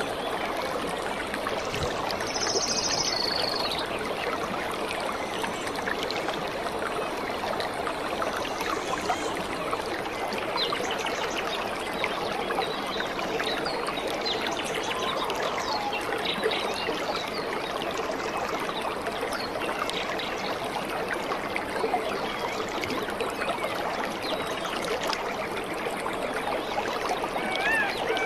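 Waterfall pouring into a rocky pool: a steady rush of water.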